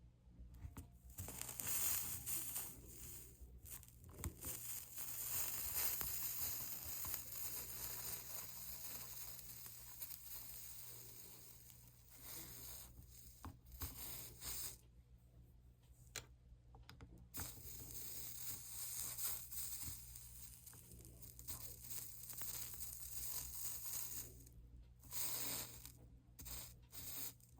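Flux sizzling and crackling under a soldering iron as 60/40 solder is run along copper-foiled stained-glass seams. It comes in stretches of a few seconds, with short pauses where the iron lifts.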